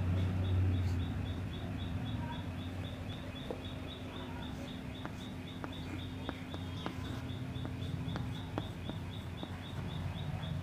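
Chalk writing on a blackboard: short scratches and taps, most of them in the middle of the stretch, over a steady low electrical hum.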